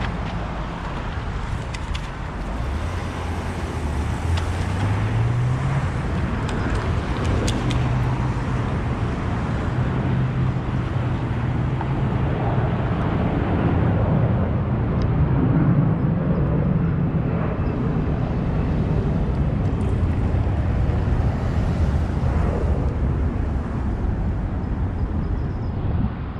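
Street traffic: motor vehicle engines running and passing, with one vehicle accelerating a few seconds in, its engine rising in pitch.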